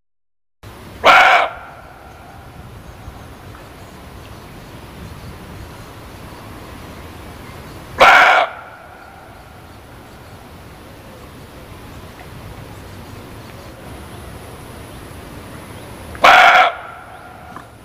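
Muntjac (barking deer) giving three short, sharp barks about seven to eight seconds apart, over a steady background hiss.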